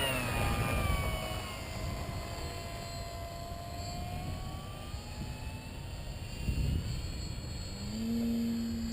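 Electric motor and propeller of a radio-controlled FMS 1400mm Pitts biplane whining under power as it takes off and climbs away. The pitch falls slowly and the whine fades over several seconds. A lower steady hum comes in near the end, over a low rumble of wind on the microphone.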